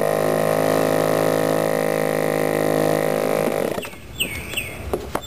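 Handheld electric starter spinning a .46-size model-airplane glow engine through its spinner with a steady whine, the engine not catching. The starter winds down and stops after about four seconds, then a few bird chirps follow.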